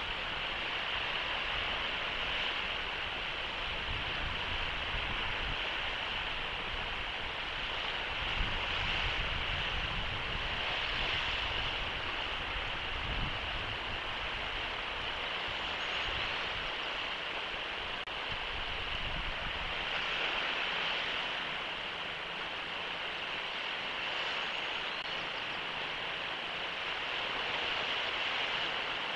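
Steady hiss of surf below a sea-cliff nest, with wind rumbling on the microphone at times during the first two-thirds.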